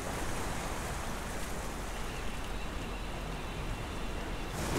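Steady wash of sea waves on a rocky shore, an even rushing noise with no distinct splashes.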